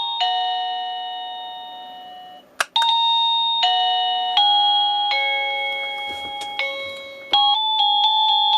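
Plug-in chime receiver of a TRAUST wireless doorbell playing electronic chime tunes, with sustained ringing notes that fade away. A click about two and a half seconds in, and another near the end, each starts a different tune as the tones are cycled.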